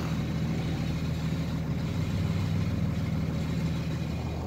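Pickup truck engine idling steadily, heard from inside the cab.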